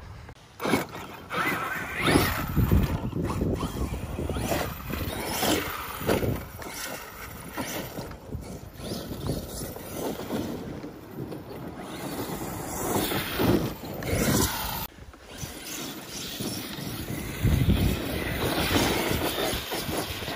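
Arrma Kraton 8S electric RC monster truck driving over dirt and rough ground: the motor and drivetrain surging on and off the throttle, with tyres scraping and crunching and repeated bumps from landings and rough terrain.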